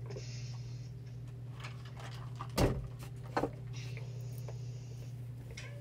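Steady low hum of a quiet room. About two and a half seconds in comes a short knock, the loudest sound, and a softer one follows about a second later.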